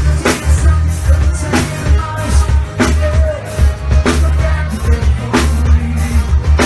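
Forró band playing live: a drum kit keeping a steady beat over a heavy bass line.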